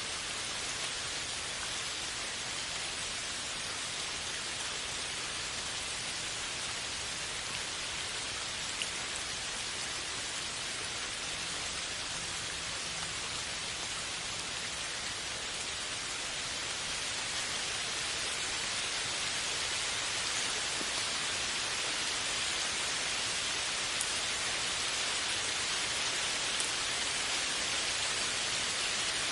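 Steady rain falling: an even hiss with a few faint drop ticks, growing slightly louder a little past halfway through.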